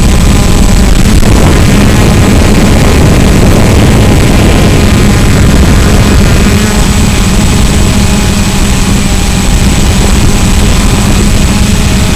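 Quadcopter drone's electric motors and propellers running in flight, a loud, unbroken buzz with a steady low hum.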